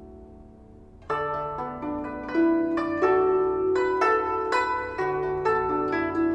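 Guzheng (Chinese zither) being plucked: the last notes fade for about a second, then a melody of quick plucked notes starts, each note ringing on over a sustained low bass note.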